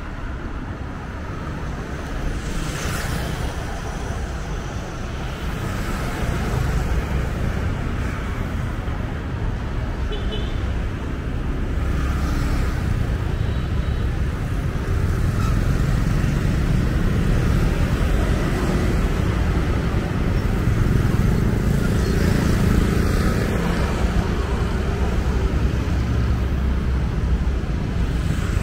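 City street traffic: the engines and tyres of passing cars and motorbikes make a steady low rumble, with a few vehicles swelling past. It grows louder about halfway through.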